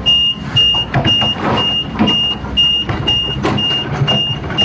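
Excavator's warning alarm beeping steadily, about two high beeps a second, over the machine's engine running.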